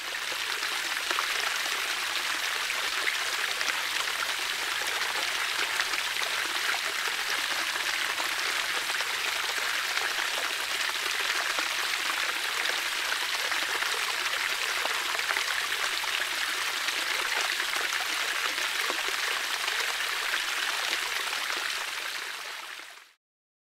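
Steady rushing of flowing water, like a stream or river, even throughout and fading out near the end.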